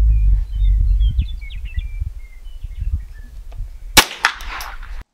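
A single .22 LR rifle shot about four seconds in, a sharp crack with a short ringing tail. Before it there is a low rumbling noise and a few short bird chirps.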